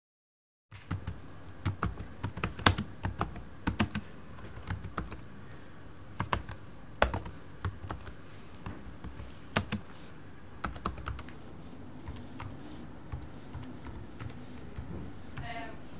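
Typing on a laptop keyboard: uneven runs of key clicks, starting about a second in and thinning out near the end.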